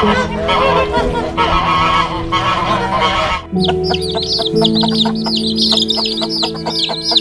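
Chickens clucking, then, after a cut about three and a half seconds in, many quick high chirps repeated rapidly, over background music.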